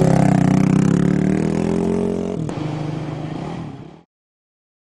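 Off-road race vehicle's engine running at a steady speed, fading away and cutting off about four seconds in, with a single click midway.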